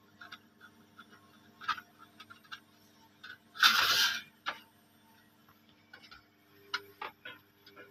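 Fingers and fingernails picking and peeling protective film off an engraved logo plate, making small scattered clicks and scratches, with one louder rustling scrape about halfway through as the film tears or the plate shifts.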